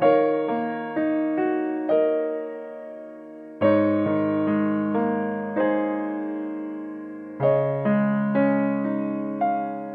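Background piano music: slow, gentle notes and chords, each struck and left to ring and fade, with fuller chords at the start, about three and a half seconds in, and near seven and a half seconds.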